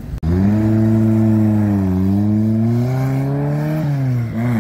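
Volkswagen Type 2 camper van engine running as the van drives off. The engine note climbs slowly, then drops abruptly about four seconds in.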